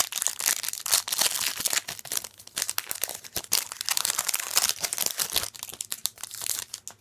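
Foil wrapper of a Magic: The Gathering booster pack crinkling and tearing as it is ripped open, a busy run of crackles that stops just before the end.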